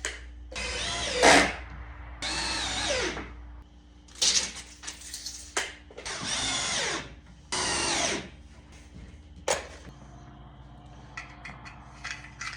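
Power drill driving screws into a wooden brace, in four runs of about a second each with the motor pitch sliding as the trigger is worked. Light clicks and knocks follow near the end.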